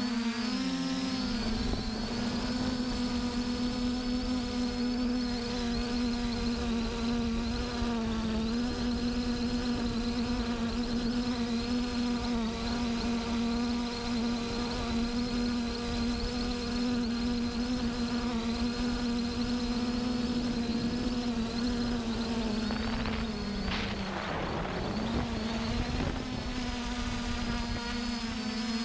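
A flying insect buzzing close to the microphone, a steady wing-beat drone whose pitch wavers and dips now and then as it moves, most markedly near the end.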